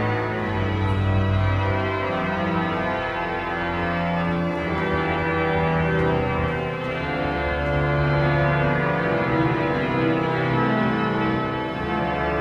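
Pipe organ in a large abbey church playing slow, sustained chords over a held bass, the harmony moving every second or two.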